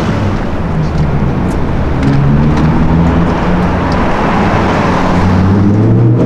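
A car engine running loudly over road noise, its pitch rising a little about two seconds in and again near the end.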